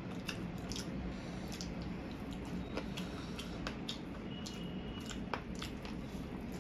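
Eating sounds: chewing, and hands squeezing and scooping sauce-coated fried rice, with many small clicks scattered throughout.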